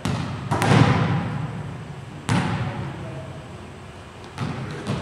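A volleyball being struck during play, a few sharp hits about two seconds apart, the loudest about half a second in, each ringing out in the gymnasium's echo.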